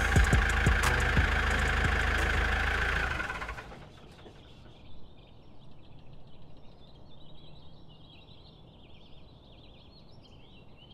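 An engine running steadily with a deep rumble, which drops away about three and a half seconds in. After that there is only faint outdoor air with small bird chirps.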